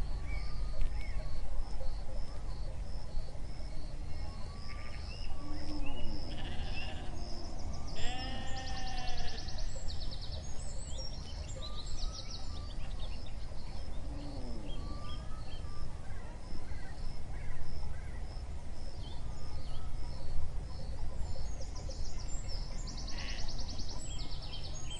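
Sheep bleating a few times, with birds singing and a high call repeating about twice a second throughout, over a steady low outdoor rumble.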